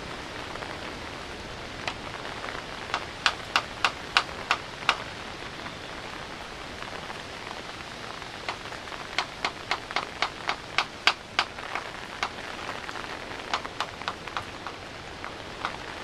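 Steady rain falling, with three runs of sharp clicks, several a second: about three seconds in, again from about eight to eleven seconds, and near the end.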